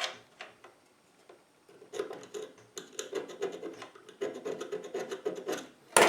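Hand tool rasping at a metal key blank in repeated scraping strokes, roughly cutting it down to size; the strokes start about two seconds in after a short pause, and a sharper, louder clack comes near the end.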